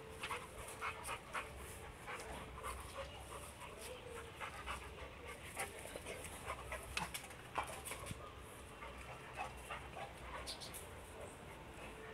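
Red-nose pit bull panting in a series of short, irregular breaths.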